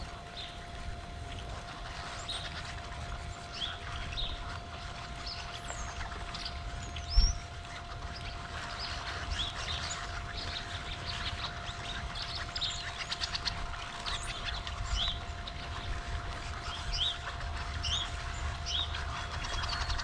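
A large flock of small birds at backyard feeders giving many short chirps and calls, over a steady low rumble and a faint steady hum. A single sharp thud stands out about seven seconds in.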